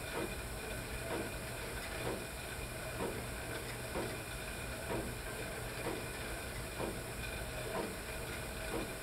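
Stationary cycle ergometer being pedalled at a steady load: a constant whirring hiss from the braked flywheel, with a soft rhythmic stroke about once a second that follows the pedalling cadence.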